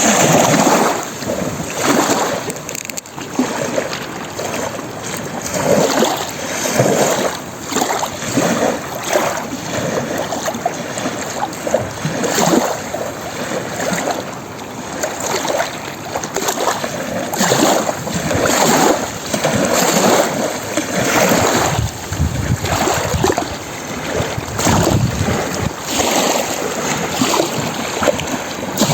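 Lake waves lapping and splashing against the shore, rising and falling in irregular surges.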